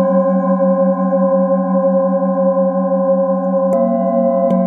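Several metal singing bowls ringing together in long, overlapping tones, the lowest one a hum that pulses a few times a second. A wooden mallet strikes a bowl nearly four seconds in and again near the end, each strike adding a fresh ring.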